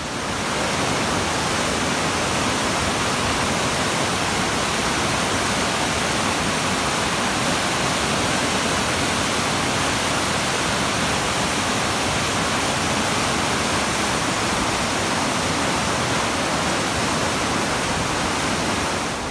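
River in flood rushing over rapids, fast brown floodwater churning into whitewater. A loud, steady, unbroken rush of water.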